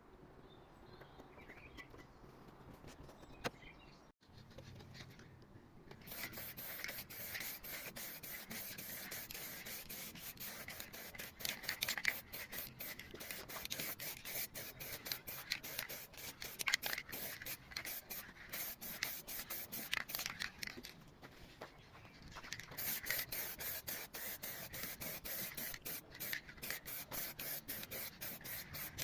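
Car body panel being sanded by hand: rapid rubbing, scraping strokes that start about six seconds in, ease off briefly around twenty-one seconds, then carry on.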